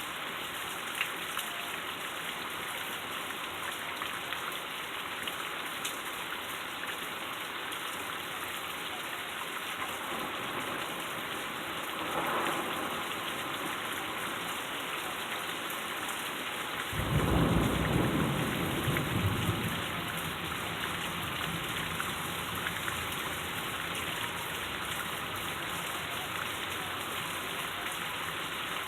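Heavy rain falling steadily in a thunderstorm. A brief rumble of thunder comes about twelve seconds in, and a loud clap of thunder breaks suddenly a few seconds later and rolls on for about three seconds.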